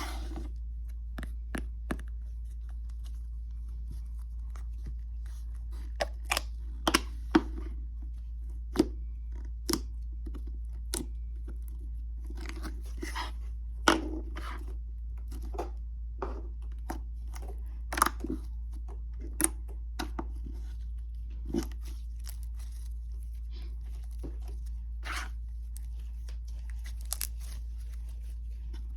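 Store-bought slime being stretched and squished by hand, giving irregular sticky pops, crackles and small tearing sounds. The slime is a little sticky and rips slightly when pulled.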